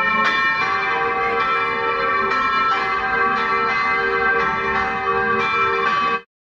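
Church bells ringing, several bells struck about twice a second, each strike ringing on and overlapping the next. The sound cuts off abruptly near the end.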